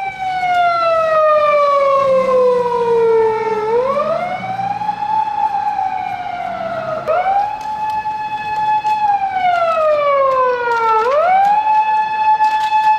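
Japanese police car siren wailing: the tone falls slowly over a few seconds, sweeps quickly back up, holds, then falls again, about three times over.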